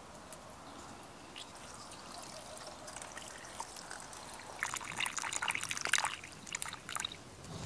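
Water running from the tap of a hanging collapsible water bag into a metal pot of raw oysters in the shell, trickling and splashing over the shells as the pot fills. The pour grows louder about halfway through and eases off near the end.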